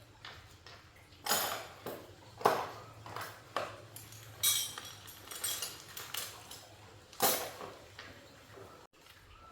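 Irregular sharp clinks and knocks of hard, mostly metal objects being handled and set down, about eight in all, the loudest about two and a half seconds in and near the end.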